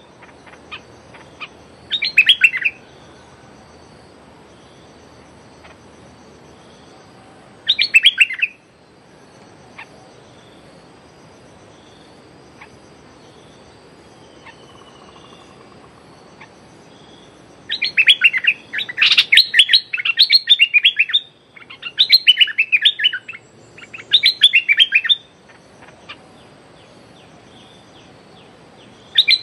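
Stripe-throated bulbul singing in short bursts of rapid, bubbling chatter: one burst about 2 seconds in, another near 8 seconds, then a quick run of bursts from about 18 to 25 seconds. This is the challenge call of a caged decoy bird aimed at another bulbul.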